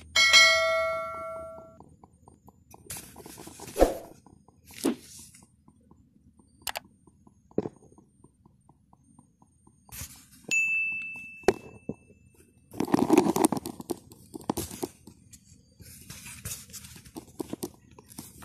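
A bell-like ding with many overtones right at the start, ringing out over about two seconds, then scattered clicks, knocks and rustles as a Glock 26 replica pistol is handled, with a short high beep about ten seconds in.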